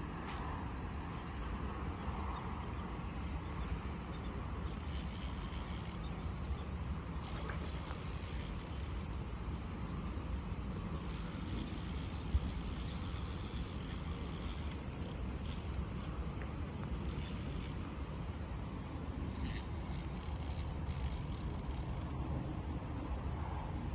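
Fishing reel being cranked in several bouts of a few seconds each, with a steady low rumble underneath.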